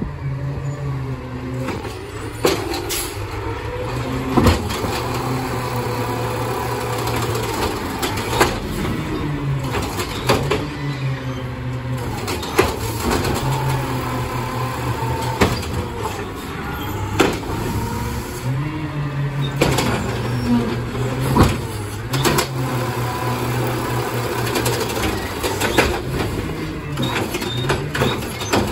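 Peterbilt 520 automated side-loader garbage truck working its lifting arm: the engine running with pitch changes as it drives the hydraulics, a whine gliding up and down, and repeated knocks and bangs as the arm grabs, lifts and dumps a recycling cart.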